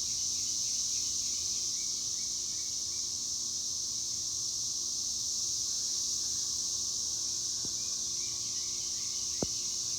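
Cicadas singing in chorus: a steady, high-pitched buzz that holds without a break.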